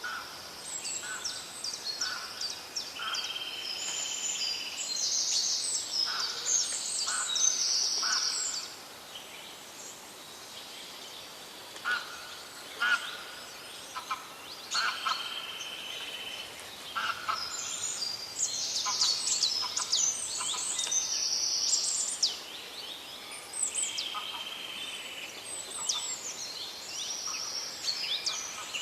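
Several wild birds singing and calling: quick chirps, trills and held whistles in overlapping bursts, with a quieter lull about nine seconds in before the singing picks up again.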